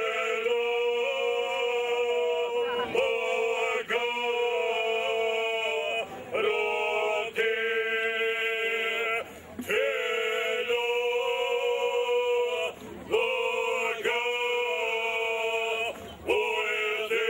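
Men's ojkača group, five voices, singing a cappella in traditional Bosnian Serb style: loud held notes in close harmony over one steady low note, with other voices moving above it. The long phrases break off briefly for breath about every two to three seconds.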